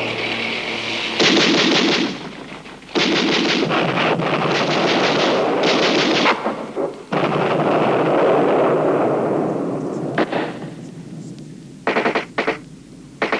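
Battle gunfire: several long bursts of rapid machine-gun fire in the first half, a dense stretch of continuous firing in the middle, then a handful of separate sharp shots near the end.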